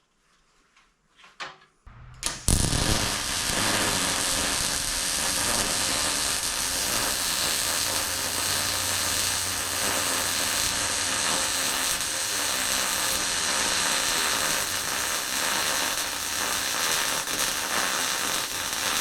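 Electric welding arc crackling steadily as a long weld bead is laid on a steel shelf's inside corners, striking up about two seconds in after a moment of quiet.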